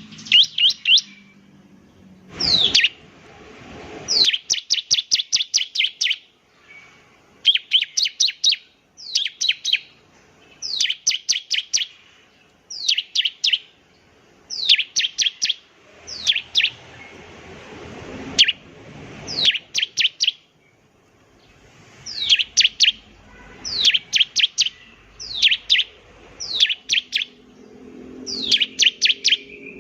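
Bar-winged prinia (ciblek) singing. Its song is a string of quick bursts of sharp, high notes that sweep downward, about four to eight notes to a burst, with a short pause between bursts.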